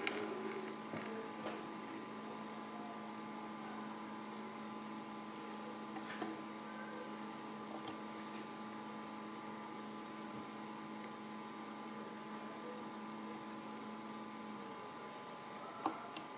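Magnetic stirrer running with a steady hum of several held tones, with a few light clicks. The lowest tone of the hum fades out near the end.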